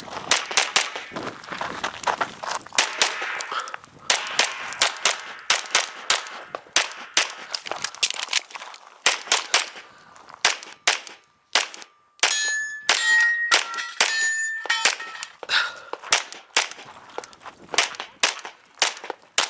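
Rapid 9mm pistol fire from a Canik Rival, dozens of shots in quick strings, with a brief pause about halfway through. Hit steel targets ring, most clearly just after the pause.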